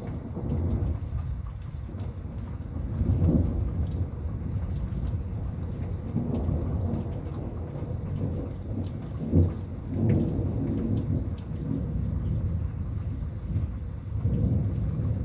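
Thunder rumbling in repeated swells during a thunderstorm, with a sharper crack about nine seconds in. Rain patters steadily underneath.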